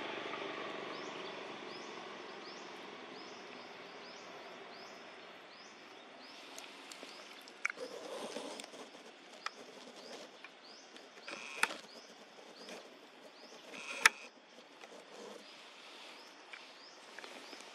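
Natural ambience: a small bird repeats short, high chirps, about two or three a second, with a few sharp clicks or snaps. An engine drone fades away over the first few seconds.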